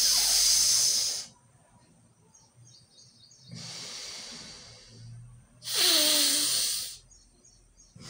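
Forceful breathing through one nostril in pranayama, the other nostril held shut with a finger: two loud rushing breaths of about a second each, at the start and about six seconds in, with a softer, longer breath between them.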